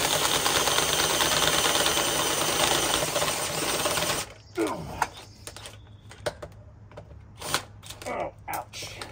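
Cordless drill boring a bolt hole up into the metal underside of the truck body, running hard for about four seconds with a fine chattering rattle, then stopping suddenly. A few short knocks and clicks follow.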